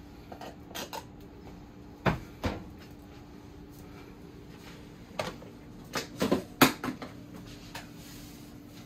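Scattered knocks and clicks of things being handled in a kitchen, the loudest cluster about six to seven seconds in, over a faint steady hum.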